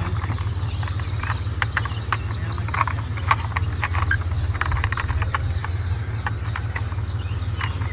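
Irregular light clicks and knocks, many in quick succession, over a steady low hum.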